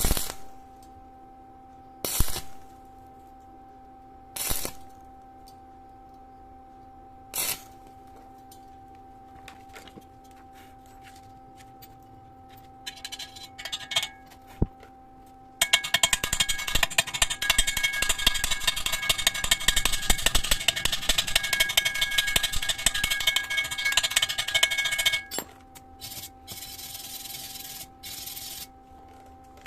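Welding on thin sheet metal: a few sharp, short bursts, then a dense, continuous crackling weld for about ten seconds that stops abruptly and comes back in short spurts. A steady tone hums underneath throughout.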